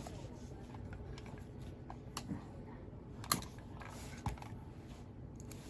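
A few scattered keystrokes on a mechanical keyboard, single sharp clicks with pauses between them, the loudest about three seconds in, over a steady low room hum.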